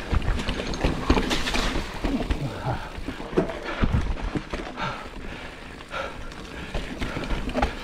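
Giant Reign 29 mountain bike clattering down a rough, rocky trail: irregular knocks and rattles from the tyres, chain and frame striking over rocks, over a low rumble.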